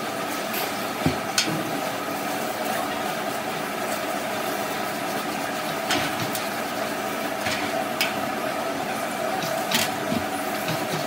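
A machine running steadily with a constant hum, with several sharp clicks and knocks, about a second in and again around the middle and near the end.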